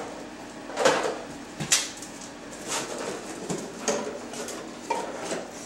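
Dogs searching among household containers and bags, making a handful of short rustles and knocks, roughly one a second.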